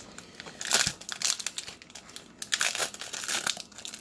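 Plastic wrapper of a trading-card pack crinkling as it is opened and handled, in irregular bursts, the loudest about a second in and around three seconds in.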